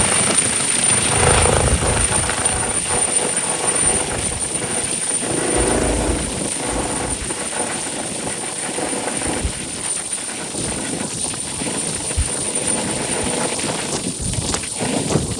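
Rescue helicopter's rotor and turbine noise as it flies off after take-off, a steady loud wash slowly getting quieter.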